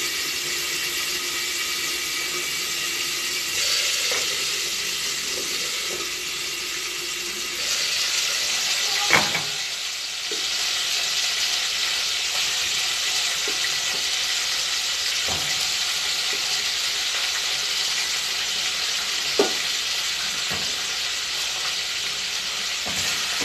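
Chicken pieces searing in hot oil in a pot, a steady sizzle that grows louder about eight seconds in as the lid comes off. A single knock of metal cookware about nine seconds in, and a small click later.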